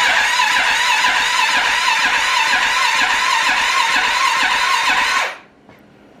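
Arctic Cat 650 H1 ATV's single-cylinder four-stroke engine cranking on its electric starter without firing, turned over to build oil pressure after a rebuild. The cranking rises and falls evenly about three times a second and cuts off suddenly about five seconds in.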